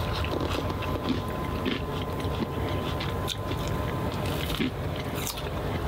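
A person chewing and eating close to the microphone, with small clicks and scrapes from dipping bread into a glass jar. Underneath runs a steady low hum and a faint, steady high tone.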